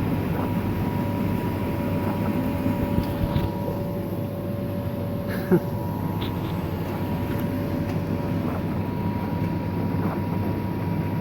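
Miele dishwasher running its rinse: a steady hum of the circulation pump and water spraying inside the tub, with a thin steady whine over it. One short knock about five and a half seconds in.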